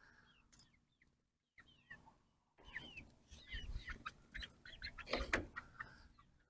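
Young chickens giving short, quick chirps and clucks, most of them in the latter part.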